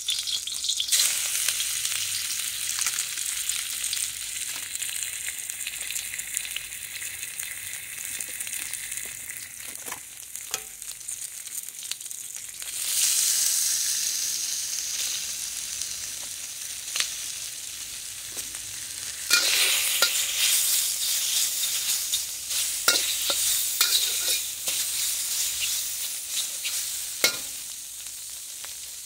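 Hot oil sizzling in a smoking wok. About 13 s in the sizzle turns suddenly louder as chicken and tofu go into the oil. From about 19 s a metal spatula scrapes and knocks against the wok as the food is stir-fried.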